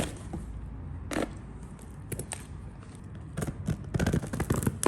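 A small cardboard box being handled and opened: scattered sharp clicks and scrapes, growing busier in the last second and a half.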